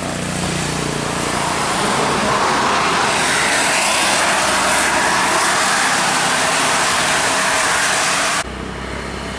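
A heavy vehicle, most likely a bus, passing close on a wet road. A low engine drone comes first, then a loud, steady hiss of tyres and spray that swells and holds, and cuts off abruptly near the end.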